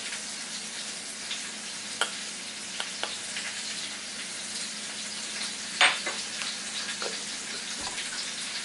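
Steady sizzle of chicken frying in bacon grease, with a few light clicks and taps from a spice jar being shaken over a stainless steel bowl, the sharpest about six seconds in.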